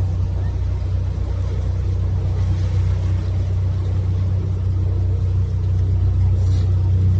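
Canal tour boat's engine running steadily at cruising speed, a constant low drone.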